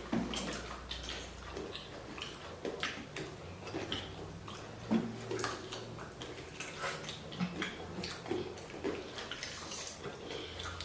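Eating sounds from a bowl of chicken noodle soup: wet chewing and slurping with many short clicks, some of them cutlery against the bowl.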